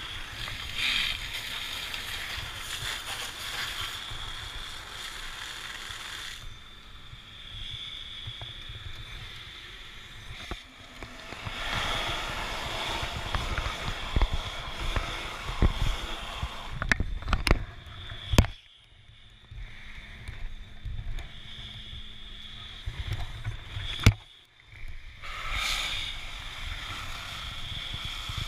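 Firefighting hose nozzle spraying foam onto a burnt-out car with a steady hiss, over rumbling handling noise on the helmet camera. There are a few sharp knocks around the middle, and the sound briefly drops away twice in the second half.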